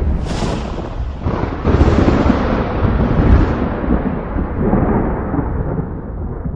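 Thunder in a thunderstorm: sharp cracks in the first two seconds, then a long low rumble that slowly dies away.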